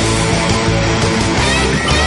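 Heavy rock music with electric guitar and a steady beat.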